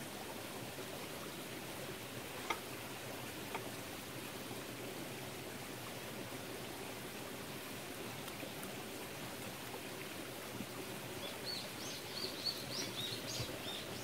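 Steady rushing and trickling of a mountain stream, with a small bird chirping in quick, high notes over the last few seconds and a couple of light clicks about two and a half and three and a half seconds in.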